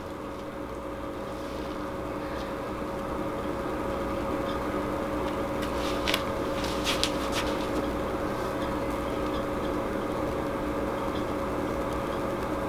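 A steady machine hum holding two even tones, slowly growing a little louder, with a few faint clicks about halfway through.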